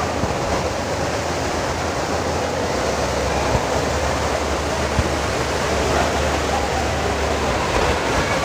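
Steady rushing of a large indoor waterfall, the Rain Vortex falling from the centre of a glass dome.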